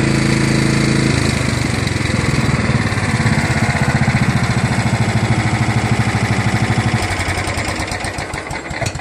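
Kohler Command 12.5 HP single-cylinder engine on a John Deere LA105 lawn tractor running steadily. About a second in its note drops to a lower, pulsing beat, and it grows quieter over the last couple of seconds.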